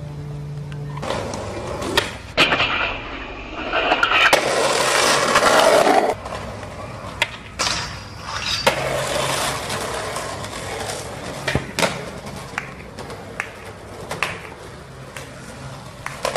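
Skateboards rolling on concrete, with repeated sharp clacks of boards popping, landing and hitting the ground. About four to six seconds in there is a loud, gritty stretch of board noise.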